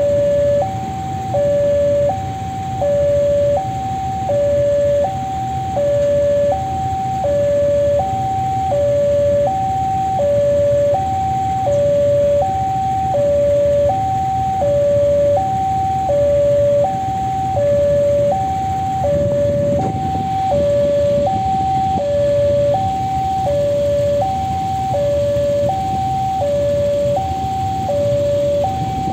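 Level crossing warning alarm sounding an electronic two-tone chime, a higher and a lower note alternating in a steady, repeating pattern. It signals that a train is approaching and the crossing is closed.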